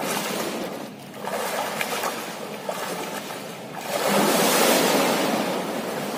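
A swimmer's arm strokes and kicks splashing in pool water, with a bigger, louder splash about four seconds in as the swimmer plunges head-first under the surface.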